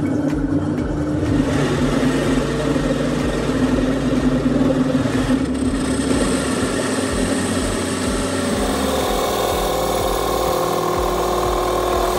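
Drill press running as a conical step drill bit cuts into a brake disc, boring out its centre hole: a steady machine hum whose tone shifts a couple of times as it cuts.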